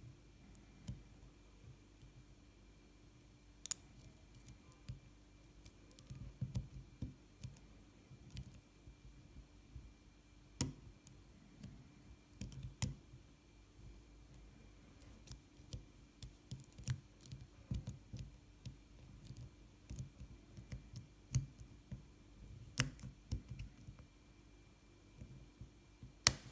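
Lock pick and tension tool working the pin stack of a six-pin BKS padlock cylinder: irregular small clicks and scrapes, with a few sharper clicks spread through as pins set. A faint steady hum runs underneath.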